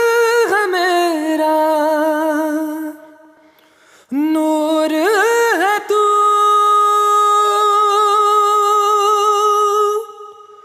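Song intro: a solo voice singing without words, gliding between notes. It fades out about three seconds in, comes back a second later, and holds one long note until near the end.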